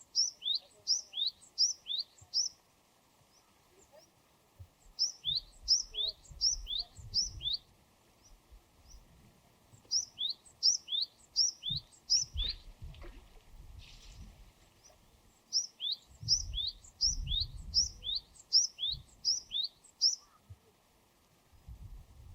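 Japanese tit (Parus minor) singing its song of repeated two-note 'tsu-pi' phrases, each a high note dropping to a lower one, about two phrases a second. It sings four bouts of five or six phrases, with short pauses between them.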